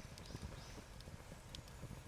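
Faint crackling of a wood campfire: a handful of small, irregular snaps and pops over a low rumble.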